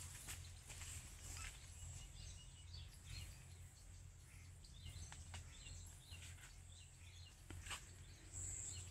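Faint outdoor ambience: a steady low hum with scattered small clicks and a few faint bird chirps through the middle.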